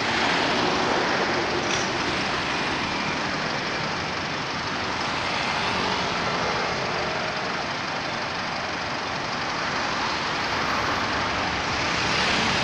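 Steady road traffic noise from passing vehicles, swelling slightly near the end.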